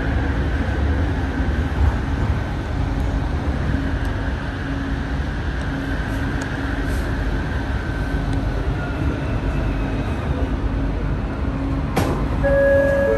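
Interior of an ART200 linear-motor metro train running, with a steady heavy rumble of wheels on rail and a constant low hum. In the second half a whine slides down in pitch, and near the end there is a sharp click followed by short steady tones.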